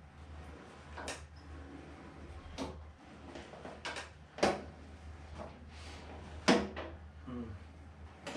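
A series of sharp knocks and clunks, about five or six, the two loudest about four and a half and six and a half seconds in: tools and parts being handled while taking apart a vintage Vespa scooter's front fork, over a steady low hum.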